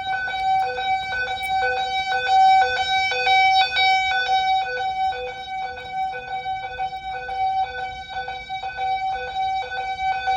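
Simplex TrueAlert ES fire alarm speakers sounding a pulsing electronic alarm tone on two pitches, switching on and off a few times a second, in an alarm test of the system.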